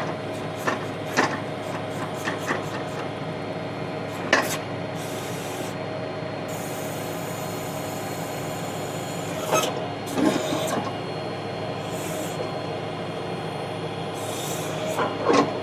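Tractor engine running steadily, driving a PTO backhoe, with a steady whine. Over it come short stretches of hiss and scraping, and a few clunks from the backhoe working: about five, the loudest near the end.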